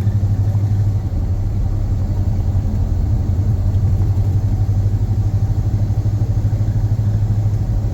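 1979 Dodge Power Wagon's engine running with a steady low hum.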